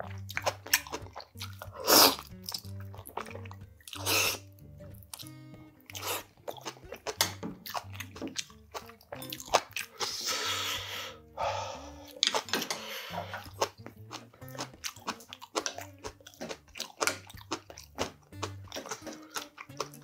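Close-miked eating of spicy braised monkfish with bean sprouts: steady chewing and crunching, with a few louder slurps and sips, the loudest about two seconds in and a longer stretch about ten to thirteen seconds in. Soft background music plays underneath.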